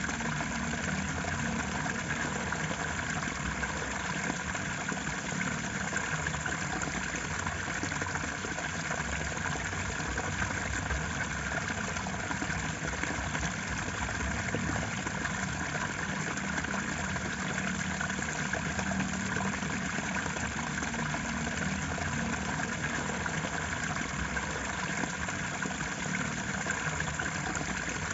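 Steady, unbroken rushing of flowing water, as of a stream or small waterfall.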